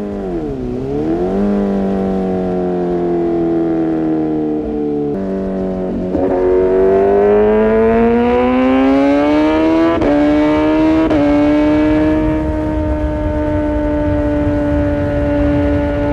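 Kawasaki ZX-6R inline-four through an Arrow Pro-Race exhaust, under way: the engine note dips briefly, sags slowly, then climbs steadily as it revs up, breaks twice in quick succession on gear changes, and holds a steady higher note to the end.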